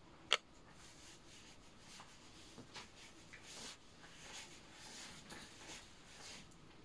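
A drawing tool scratching on paper in soft, irregular strokes, with a single sharp click about a third of a second in.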